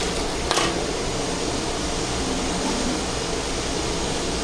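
Steady rushing noise of a gas burner under a large iron wok as a stream of liquid is poured in, with a short clink about half a second in.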